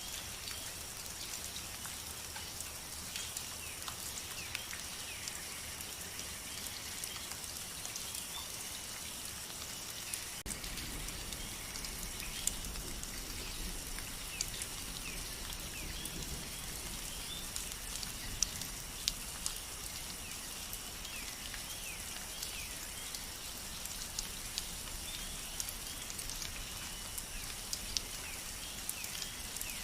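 Steady rain falling, with many individual drops ticking sharply on surfaces. Short high chirps recur throughout, and a low rumble comes in about ten seconds in.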